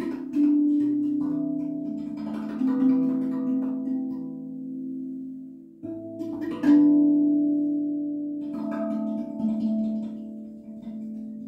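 RAV Vast steel tongue drum played by hand: single notes struck and left to ring, overlapping into a slow improvised melody in two short phrases, with bathroom echo.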